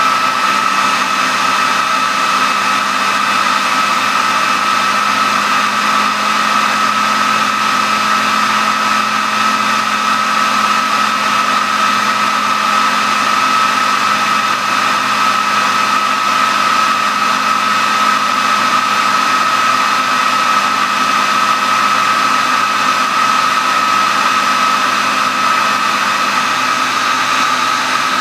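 Handheld hair dryer running on high: a steady rush of air with a high whine from its motor, unchanging throughout.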